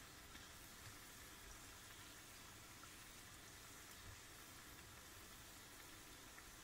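Faint, steady sizzle of gram-flour pakoras deep-frying in hot oil.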